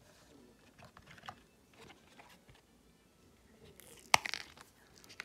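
Hands handling hard resin charms and a silicone mold: soft rustling and small clicks, then a sharp click about four seconds in with a few smaller clicks after it.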